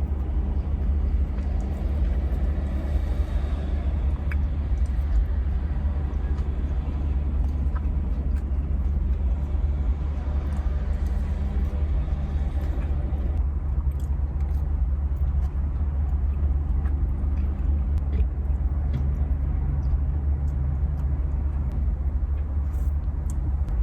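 Steady low rumble, with faint scattered clicks and taps of someone eating takeout food.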